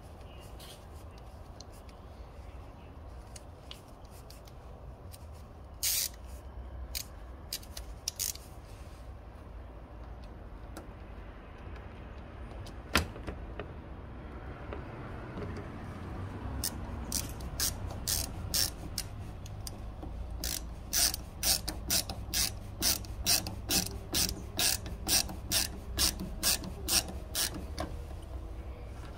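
Hand ratcheting screwdriver driving a screw back in to fasten a hood bug deflector, its ratchet clicking. A few scattered clicks come first, then a steady run of clicks in the second half, about two a second near the end.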